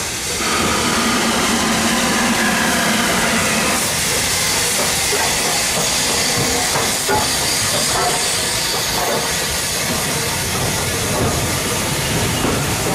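Southern Railway Schools (V) class steam locomotive No. 925 'Cheltenham' running slowly past with a loud, steady hiss of steam, which rises about half a second in. Its coaches then roll by with a few wheel clicks.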